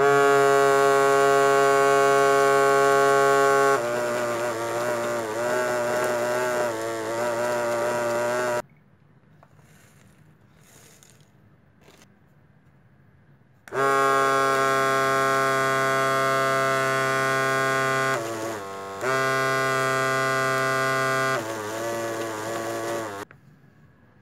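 Small yellow DC gear motor driving a cardboard sand-sifting machine, giving a loud, steady buzzing whir as it is switched on. About four seconds in, the pitch drops and starts to waver. It stops after about eight and a half seconds, then runs again from about fourteen seconds for another nine seconds, briefly dipping partway through.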